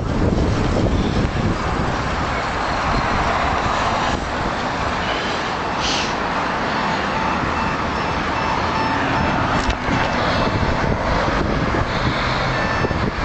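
City street traffic of cars and trucks passing, a steady wash of road noise with a heavy low rumble.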